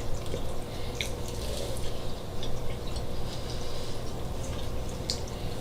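Someone biting into and chewing a Hot Pocket chicken pot pie with a flaky crust: soft mouth and chewing sounds with a few faint clicks, over a steady low hum.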